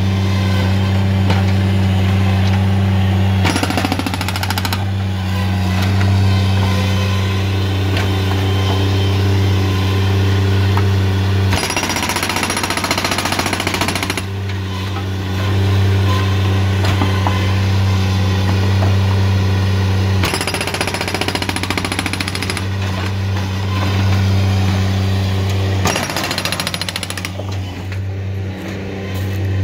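Hydraulic breaker on a Bobcat MT85 mini track loader hammering concrete driveway slab, on and off in several long bursts, over the steady drone of the loader's diesel engine.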